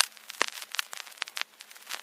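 Vinyl record surface noise: irregular clicks and pops from dust and wear in the groove over a faint hiss.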